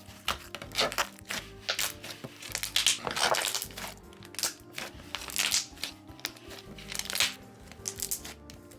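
Slime being squeezed and worked by hand, giving an irregular run of sharp pops and short crackly bursts, loudest about three seconds in. Soft background music plays underneath.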